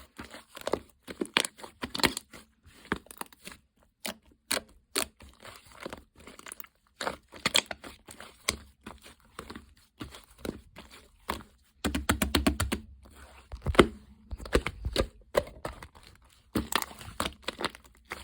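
Slime being squished, pressed and stretched by hand, giving irregular sticky clicks, pops and crackles, with a quick run of pops about 12 seconds in.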